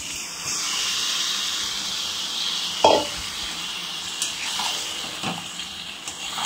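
Marinated chicken pieces sizzling as they are tipped into a hot kadai and stirred with a spatula. The spatula knocks and scrapes against the pan a few times, loudest about three seconds in.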